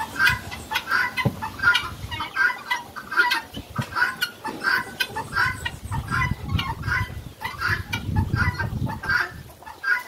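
Chicken clucking steadily, short calls repeating about two to three times a second.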